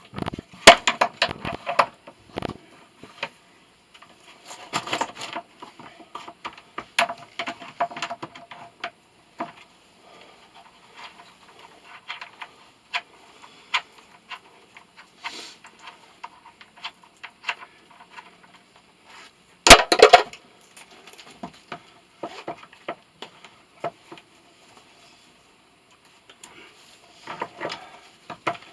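Scattered clinks, clicks and knocks of hand tools and metal parts being handled while a motor is taken apart. The loudest cluster of knocks comes about twenty seconds in.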